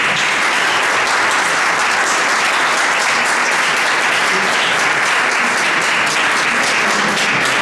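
A roomful of people applauding: dense, steady clapping that breaks out all at once and holds at a loud level.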